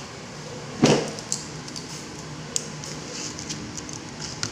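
Kitchen handling noises: one sharp knock about a second in, then a few light clicks and taps over a steady background hiss.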